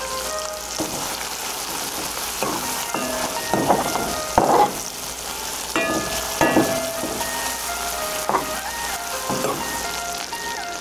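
Egg, tomato and chopped pepper sizzling steadily in hot oil in a small pan, with a metal spoon stirring and scraping against the pan bottom in several strokes.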